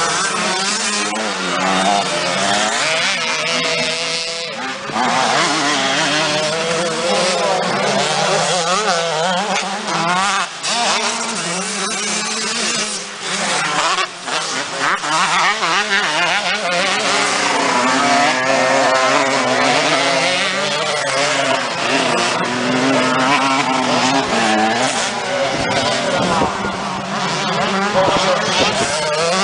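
Several motocross motorcycles racing, their engines revving up and down over one another in a continuous racket.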